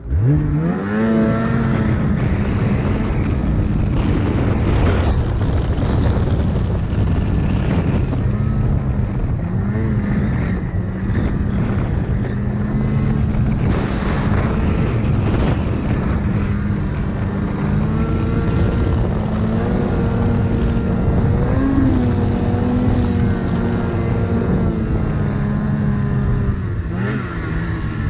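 Snowmobile engine revving up in the first second and then running under throttle, its pitch dropping and climbing again several times as the throttle is eased and reopened.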